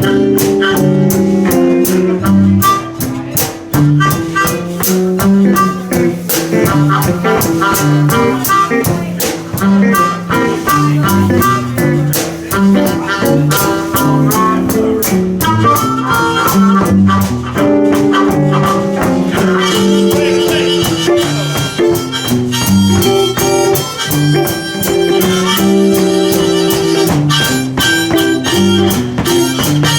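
Live electric blues band playing a fast boogie-blues instrumental break in G: harmonica soloing over two electric guitars and a drum kit keeping a steady beat.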